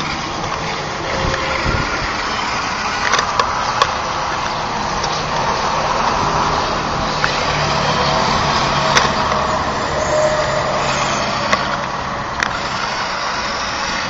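Fisher-Price toy RC car's small battery-powered electric motor and gears whirring steadily as it drives in slow gear over wooden deck boards, with scattered short clicks and knocks.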